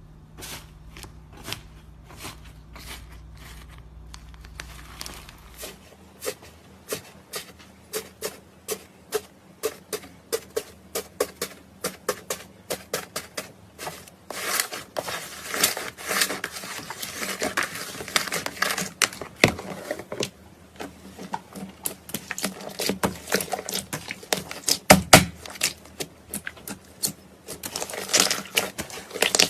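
Slime being squeezed and pressed by hand, giving a run of sticky clicks and pops about two a second. About halfway through they thicken into a dense crackling, with a few louder pops later on.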